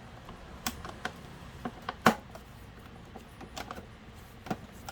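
Irregular sharp clicks and knocks of a screwdriver and hands working on the plastic housing of an electric fan as its screws are taken out, the loudest about two seconds in.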